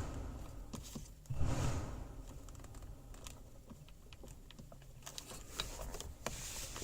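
Light, scattered clicks and handling noises of plastic dashboard trim and the climate control panel being worked loose by hand, with a brief rustle about a second and a half in and more frequent clicks near the end.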